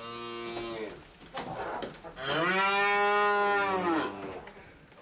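Cow mooing: a shorter moo at the start, then a longer, louder moo from about two seconds in that falls in pitch as it ends.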